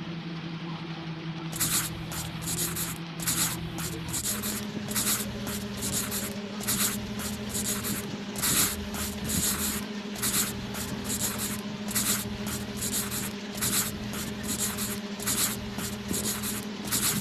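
A crayon scribbling back and forth on a coloring-book page, starting about one and a half seconds in, as a rhythmic run of scratchy strokes, two or three a second. A low steady hum underneath.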